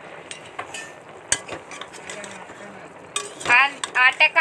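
Metal spoon scraping and clinking against an aluminium pressure cooker pot as chopped vegetables are stirred, in short irregular clicks. About three seconds in a person's voice starts, louder than the stirring.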